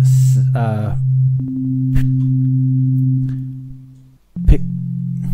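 Synthesized sine-wave tones from FL Studio's 3x Osc plugin: a steady low hum, joined about a second and a half in by a higher steady tone. Both fade away near four seconds, then a click, and the low tone comes back.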